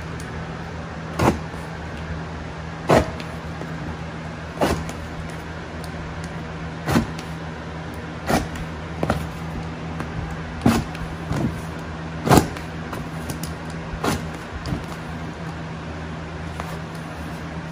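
Utility knife cutting cork wallcovering along a plastic trim guide: about a dozen short, sharp cutting clicks, one every second or two, over a steady low hum.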